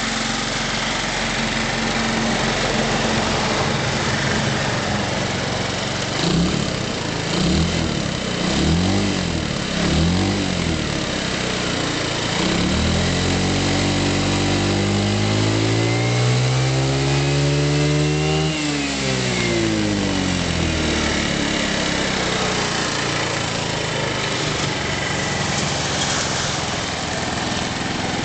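Quinky BTL125's small engine running, blipped a few times, then revved up steadily and let back down to idle.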